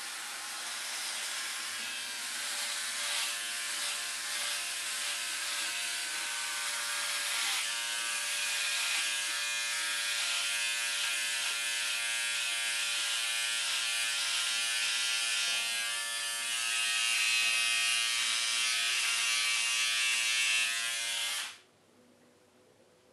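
Philips OneBlade electric shaver buzzing steadily as it is run over foam-covered stubble on the neck, chin and upper lip. The buzzing cuts off suddenly near the end.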